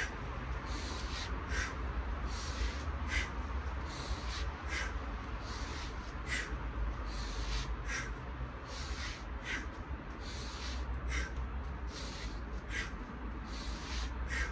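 Short, forceful breaths exhaled in rhythm with swinging a pair of heavy wooden meels, about one every second and a half, over a steady low rumble.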